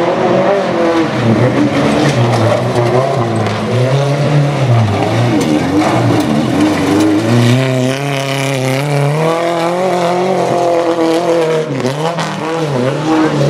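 Small pickup truck engines revving hard and easing off over and over as the trucks are driven flat out over a rough dirt course, the engine note climbing and dropping every second or two.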